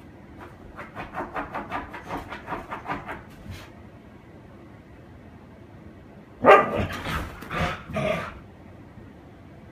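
Siberian husky vocalizing in play: three loud barks in quick succession about two-thirds of the way through. Before them, a quick run of soft short sounds, about five a second, lasts for the first few seconds.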